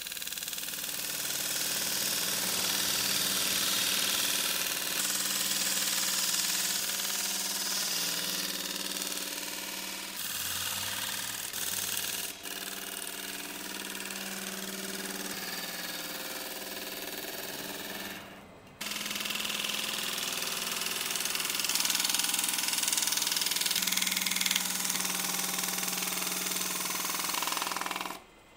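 Wood lathe running while a turning gouge cuts a spinning willow bowl blank, shaping its base and tenon: a steady motor hum under the hiss and rasp of the tool peeling shavings. The cutting sound briefly drops out about two-thirds of the way through and stops just before the end.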